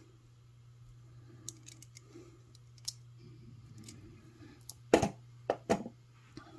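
Hands handling jewelry pliers, wire and glass beads: light scattered clicks, then a few sharp knocks about five seconds in as things are set down. A steady low hum runs underneath.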